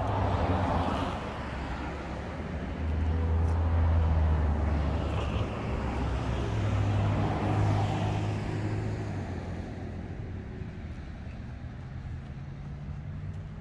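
Road vehicle engines and traffic noise: a low engine drone with tyre and road hiss that swells and fades a few times, quieter near the end.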